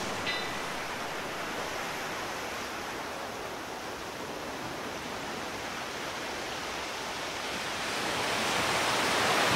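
A steady rushing noise with no tone or rhythm in it, growing louder near the end.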